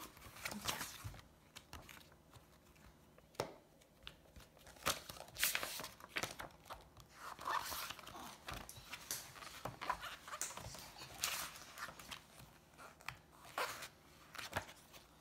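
Pages of a hardcover comic book being turned by hand: irregular, brief paper rustles and swishes.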